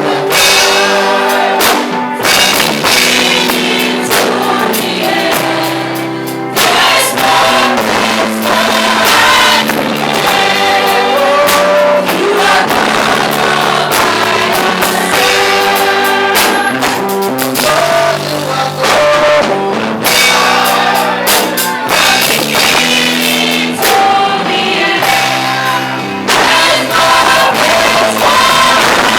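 Live gospel praise singing: a choir and congregation sing over a band with keyboard, bass and drum kit.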